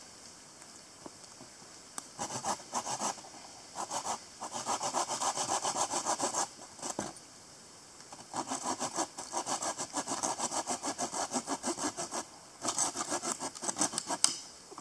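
Hand saw cutting through a long wooden branch in quick back-and-forth strokes, in four bouts with short pauses, ending with a sharp crack near the end.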